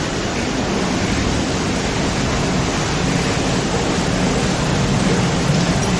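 Steady, even rushing noise with no clear events in it.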